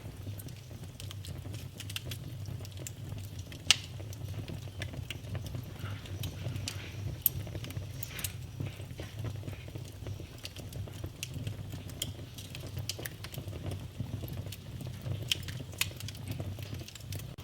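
Fireplace fire crackling, with a steady low rumble of flame under frequent small snaps. Sharper pops stand out about four seconds in and again about seven seconds in.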